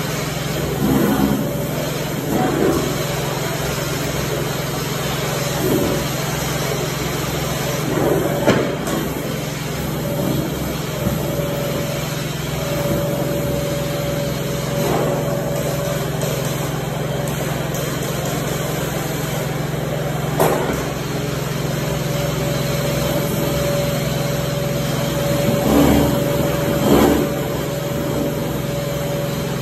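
Hard-surface tile spinner tool running on a carpet-cleaning extraction machine's hoses: a steady drone of suction and spray as it is worked over the wet tile. A thin whistle comes and goes, with a few short knocks of the tool on the floor.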